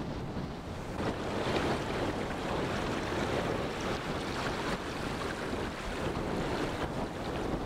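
Shallow water rippling and lapping over a sand flat, growing a little louder about a second in, with wind buffeting the microphone.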